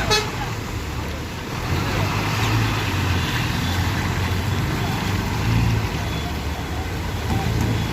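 Bus engine running, a low drone that swells and eases every second or two, with road and traffic noise around it.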